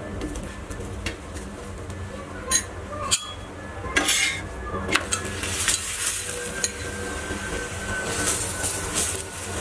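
A steel spoon and a metal spatula clinking and scraping on a hot iron tawa as ghee is spread and the paratha pressed down, with several sharp clinks. Ghee sizzles under the paratha, with stretches of scraping and frying hiss about four seconds in and near the end.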